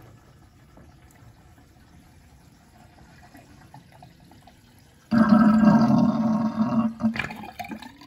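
A bathroom sink draining through a freshly repaired smooth-walled ABS drain and P-trap. Faint trickling for about five seconds, then a sudden loud pitched sucking gurgle for about two seconds as the basin empties, fading near the end: the drain is now flowing freely.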